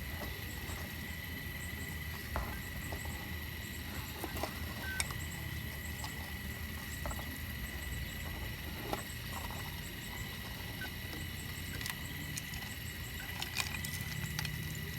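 Caterpillar digging machine working in shale: a steady low engine rumble under a constant high whine, with scattered sharp clicks and clacks of rock breaking and shifting.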